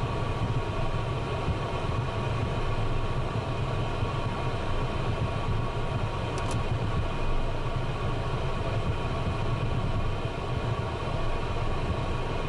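Twin turbofan engines of a Cessna Citation business jet running at taxi idle, heard from inside the cockpit as a steady low hum with a steady whine over it.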